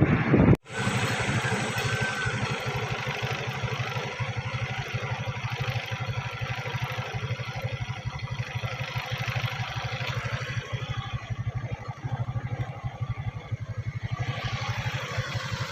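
Loud wind-blown noise cuts off abruptly about half a second in, then a vehicle engine runs steadily with an even, fast low pulse.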